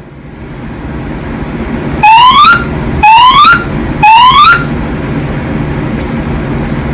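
Fire alarm voice-evacuation speakers sounding three rising whoop tones, each sweeping upward in pitch for about half a second, one a second apart: the temporal-three evacuation signal between recorded announcements. A steady low hum runs underneath.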